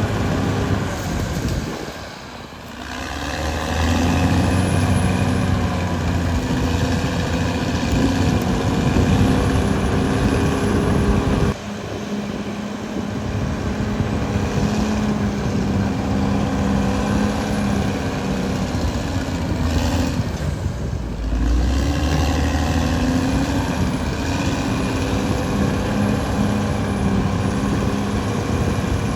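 Caterpillar D6R XL bulldozer's diesel engine running under working load. Its note sags and climbs again about 2 s in and around 20 s in, with a sudden drop in level near the middle.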